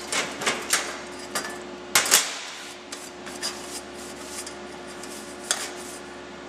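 Irregular metal clicks and clacks as a freshly welded thin steel panel is unclamped from locking pliers and handled, with a sharper clack about two seconds in. A steady faint hum sits underneath.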